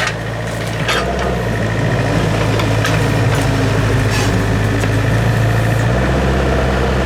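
Excavator's diesel engine running steadily, its note changing about a second and a half in and changing back near the end, with a few sharp metallic knocks.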